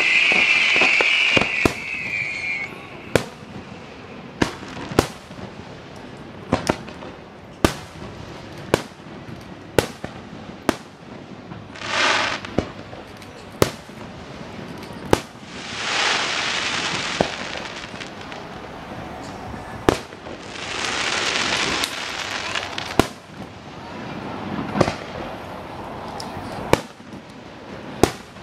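Aerial firework shells bursting: a string of sharp bangs about a second apart, with a loud hiss in the first couple of seconds and three spells of crackling hiss later on.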